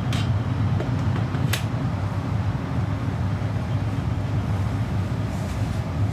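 Steady low rumble of distant city and traffic noise, with two short sharp cracks, one near the start and one about a second and a half in.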